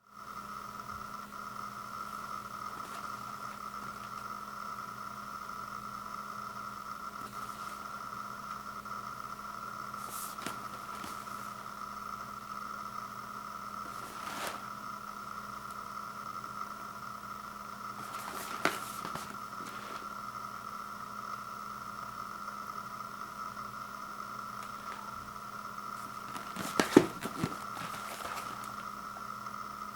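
A steady electrical hum runs throughout, broken by a few brief scrapes and knocks of handling, the loudest a short cluster of knocks near the end.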